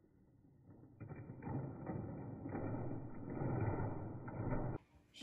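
Plastic toy caterpillar pushed along carpet, its wheels clicking and rattling. It starts about a second in, runs for roughly four seconds and stops abruptly near the end.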